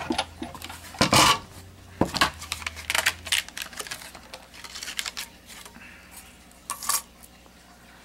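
Hands handling cardstock pieces and a clear plastic sheet on a craft mat: a few light clicks and taps, scattered small ticks and a short paper rustle near the end. A low hum runs underneath and stops about three and a half seconds in.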